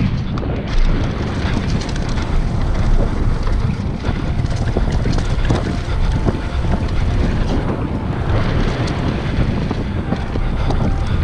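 Wind buffeting the microphone and tyres rolling over a dirt trail on a fast mountain-bike descent, with steady small clicks and rattles from the bike as it runs over bumps.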